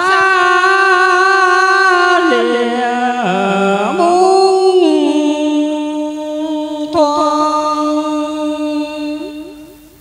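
Music without words: a melody line of long, held, slightly wavering notes that dips lower in the middle, then fades away near the end.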